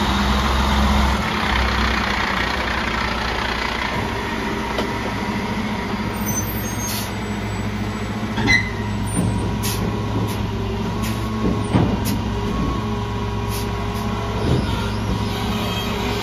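Freightliner side-loader garbage truck's diesel engine idling steadily, with a hiss of air release in the first couple of seconds and a series of metallic clanks and knocks through the second half, the loudest about halfway in.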